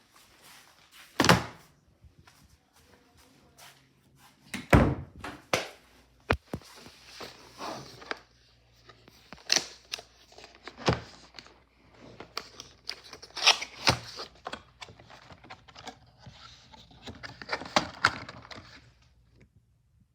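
A packaged mechanical keyboard being unboxed: a cardboard box and its packing handled, with irregular sharp knocks and thunks and stretches of rustling between them.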